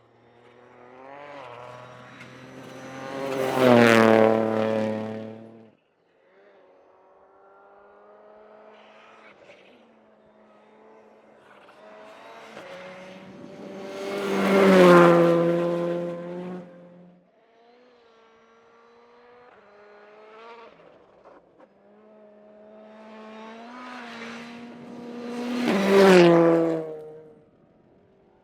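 Rally cars passing one at a time at speed, three pass-bys. Each engine note builds as the car approaches, with steps in pitch at the gear changes, peaks as the car goes by, then drops in pitch. The first two pass-bys cut off suddenly.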